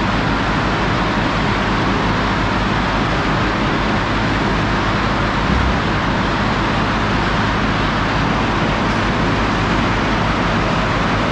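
Cement plant bag-loading conveyors and machinery running: a loud, steady, unbroken industrial din with a low hum underneath.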